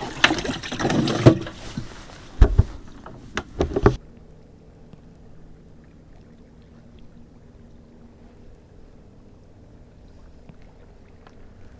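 Handling sounds aboard a bass fishing boat: a few sharp knocks and rustling over the first four seconds. Then it drops suddenly to a faint, steady low hum.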